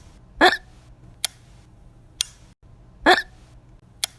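A person hiccupping twice, each hiccup a short, loud voiced gulp, the two about two and a half seconds apart. Quieter sharp clicks fall between them.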